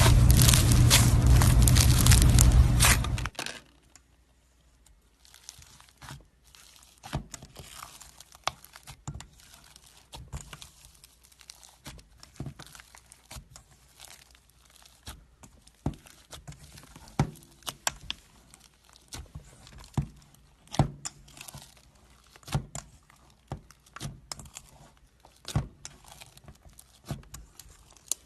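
Slime being handled: a loud, dense crackling and crinkling for about the first three seconds, which stops suddenly, then quiet with scattered small clicks and pops.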